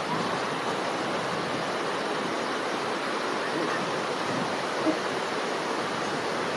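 Steady, even rushing noise with no rhythm or pitch, and one brief faint sound about five seconds in.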